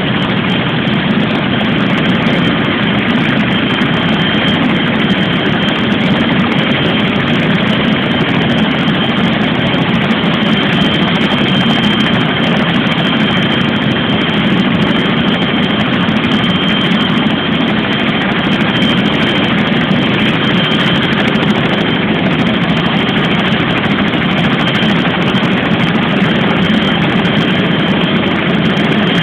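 Tandem-rotor twin-turbine helicopter running steadily: a continuous rotor and engine din with a steady high turbine whine over it.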